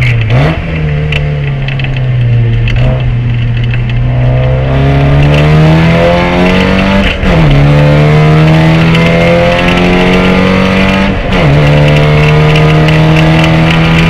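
Race car engine running hard under acceleration, its note climbing steadily through the revs. It drops sharply at gear changes near the start, about halfway and about three-quarters of the way through.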